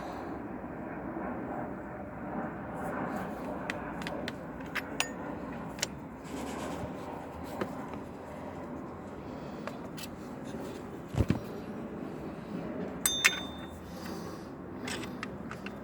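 Hand tools and metal parts clinking and scraping against the engine bay as a V-belt is fitted on a Honda Accord engine, scattered light clicks over a steady background noise. There is a dull thump about 11 seconds in and a sharper ringing metal clink about two seconds later.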